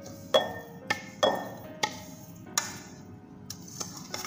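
A stainless steel pan knocked and scraped with a utensil as roasted rava is emptied from it into a glass bowl: about seven sharp clinks and knocks at uneven intervals, the loudest in the first second and a half.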